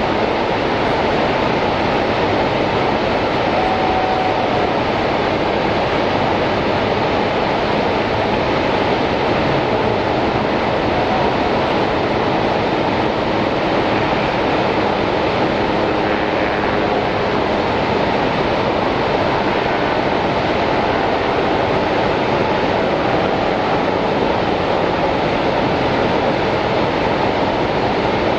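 Steady rushing of the American Falls at Niagara, a dense even roar of falling water that does not change.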